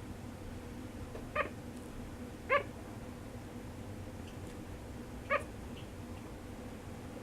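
Sugar glider giving three short, pitched cries, about one and then three seconds apart. It cries while sound asleep, which the owner guesses is a bad dream.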